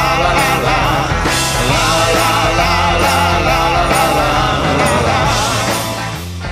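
A rock song plays, its level falling away near the end as it fades out.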